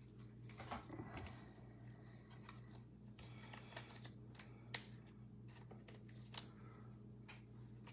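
Faint handling of trading cards, with light rustling and scattered clicks as cards slide against each other; two sharper ticks come in the second half.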